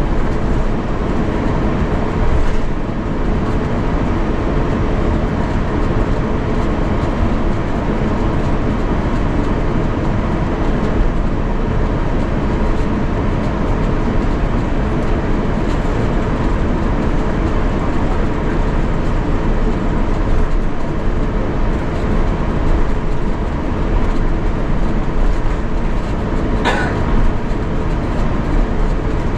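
Cabin noise aboard an Airbus A350-900 before takeoff: a loud, steady rumble with a constant hum. A brief, sharp, higher sound comes near the end.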